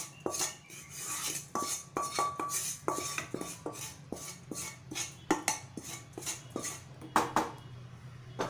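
Spoon scraping and knocking roasted whole spices out of a pan into a steel mixer-grinder jar: repeated scrapes and metallic clinks, several a second, with a louder clatter about seven seconds in.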